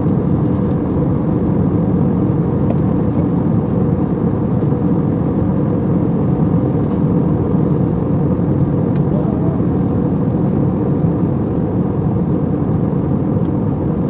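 Jet airliner cabin noise at cruise: a steady low rumble of engine and rushing air, heard inside the cabin from a window seat over the wing.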